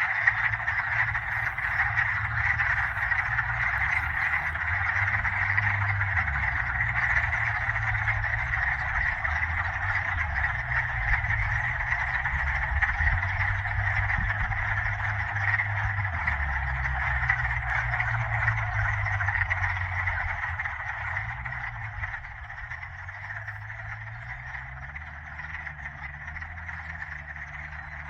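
A dense spring chorus of frogs calling continuously, many voices blending into one steady high-pitched trilling, with a low rumble underneath; the chorus softens somewhat in the last several seconds.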